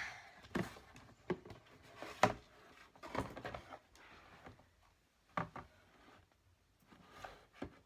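A handful of light, scattered knocks and taps of objects being handled, about six in all, in a quiet small room.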